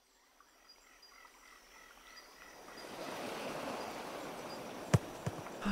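Outdoor nature ambience fading in from silence: a steady wash like water or surf with faint chirps. About five seconds in there is a sharp tap and a softer second one, and right at the end a low tone begins sliding downward.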